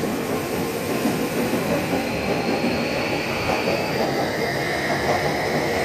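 Electric train running along the tracks, with rail and wheel noise and a faint high whine that rises slightly, then shifts lower about four seconds in.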